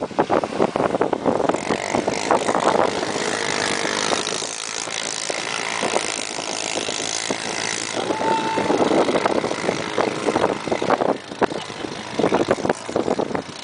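ATV (four-wheeler) engines running as the quads ride through shallow floodwater, with water splashing and spraying off the wheels. The noise is rough and uneven throughout.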